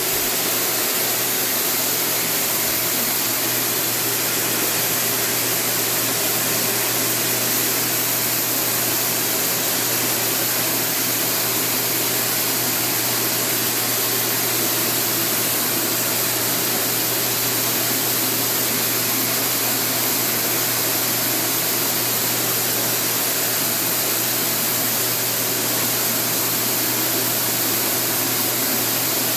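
A blower motor running steadily, with a loud rush of air and a low hum underneath.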